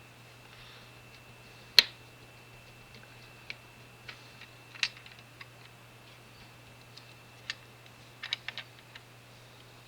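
Sharp clicks and taps of a small Phillips screwdriver and tiny screws against model car parts while screws are being driven in: one loud click about two seconds in, scattered single clicks after it, and a quick run of clicks near the end.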